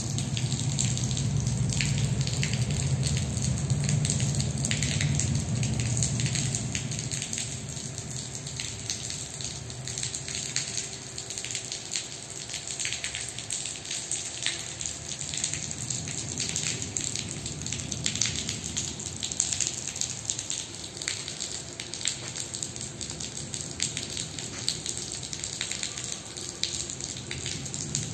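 Rainwater leaking through a car park ceiling, pouring and splashing onto a wet concrete floor as a steady spatter of drops. The rush is fuller for the first several seconds, then eases to a lighter splashing.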